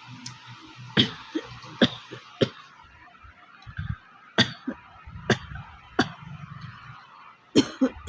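A person's dry coughs: about seven short, sharp coughs at irregular intervals of roughly a second. It is a real dry cough, not a cold.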